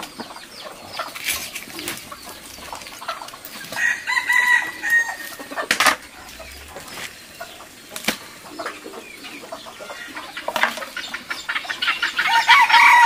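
Chickens clucking, with a rooster crowing once about four seconds in. Near the end the birds' calls grow louder and denser as the flock crowds in.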